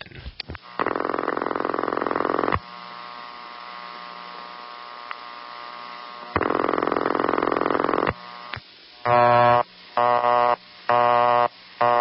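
Telephone ringback tone of the old No. 5 crossbar ring type, made by a rotating mechanical tone plant in the central office: two buzzy ring bursts of about two seconds each, some four seconds apart, with a faint line hum between them. From about nine seconds in, a busy signal follows, short beeps about once a second.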